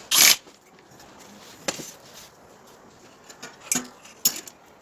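Workshop handling noises: a short burst of noise at the very start, then a few separate knocks and clinks of tools and parts being set down and handled.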